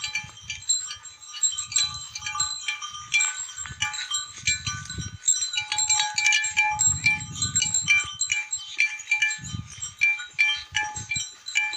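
Metal neck bells on grazing livestock clinking and ringing irregularly, many short overlapping notes, with short low sounds from the animals in between.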